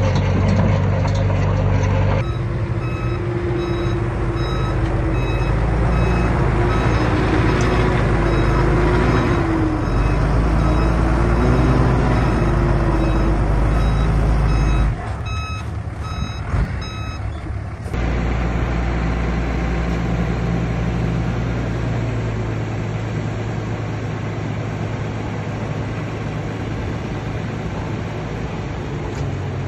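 Heavy construction machine's back-up alarm beeping in a steady repeated pattern over its diesel engine running. The beeping stops a bit past halfway, leaving the engine running.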